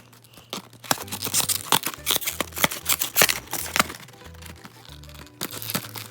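Large scissors cutting into toy packaging: a string of irregular sharp snips and cracks. Background music with a low bass line plays underneath.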